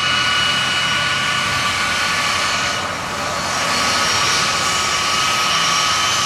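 Boeing 757's twin jet engines at high power as it rolls down the runway: a steady loud rush with high whining fan tones, dipping briefly about three seconds in.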